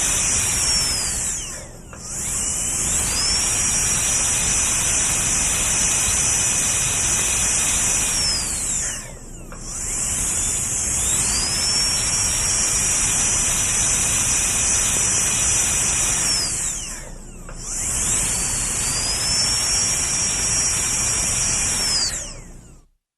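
Dental drill running with a high-pitched whine over a hiss. Three times the whine drops in pitch as the drill winds down, then rises again as it restarts. The sound cuts off near the end.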